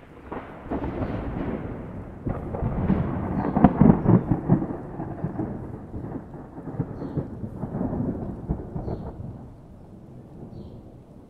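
Rolling thunder: a long low rumble that builds to its loudest about four seconds in, swells again around eight seconds, and fades away toward the end.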